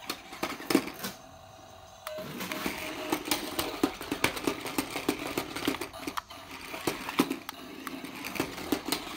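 Small battery-powered RC stunt car's motors and gears buzzing as it spins and tumbles on a tile floor, its plastic wheels clattering and knocking against the tiles. The noise drops off for about a second near the start, then carries on busily with many sharp knocks.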